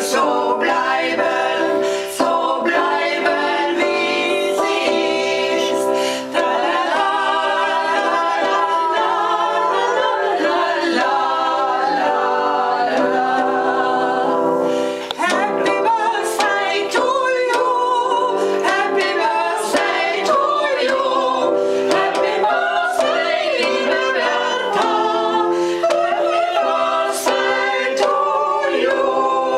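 Several voices singing a birthday serenade together, accompanied by an electronic keyboard playing held chords.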